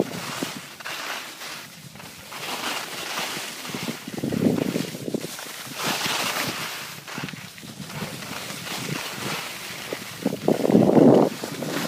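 Wind rumbling on the microphone in gusts, loudest about four seconds in and near the end, over the rising and falling hiss of skis carving across packed snow.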